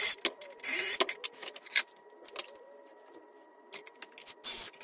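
Cordless drill boring through a wooden drawer front in short bursts, at the start, about a second in and again near the end. Sharp clicks and knocks in between as the metal drilling jig is handled and moved.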